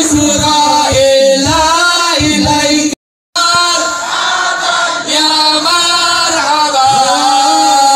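A crowd of men singing sholawat together, a devotional chant in praise of the Prophet, with low beats under it for the first two seconds or so. The sound drops out completely for a moment about three seconds in, then the singing resumes.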